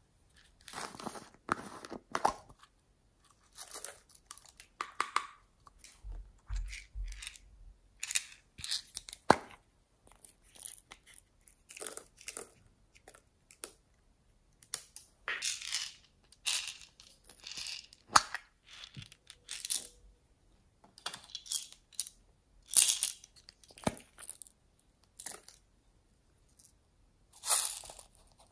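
Small plastic containers being handled, opened and tipped out over a glass dish of slime. It makes a string of short scraping, rustling and rattling noises with a few sharp clicks.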